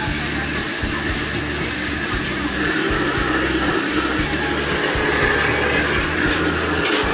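Restaurant gas wok burner running at full flame with a steady loud rush, under the hiss of stir-frying in a wok.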